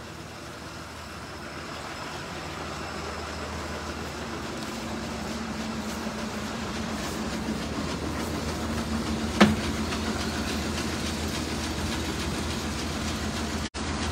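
Truck engine running as a truck draws closer, a steady rumble and hum growing slowly louder, with one sharp clank about nine seconds in.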